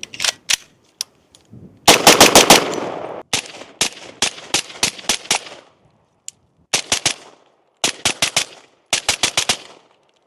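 CZ Bren 2 rifle firing 5.56 rounds: a few scattered shots, a rapid burst of about half a dozen shots about two seconds in, a string of single shots, then three short rapid bursts of four or five shots near the end.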